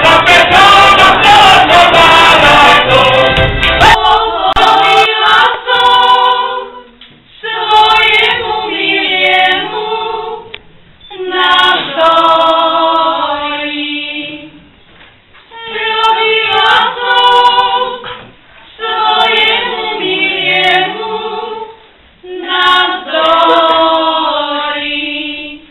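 Folk band music with fiddle and accordion for about the first four seconds, then a group of women singing a Slovak folk wedding song unaccompanied, in six short phrases with brief pauses between them.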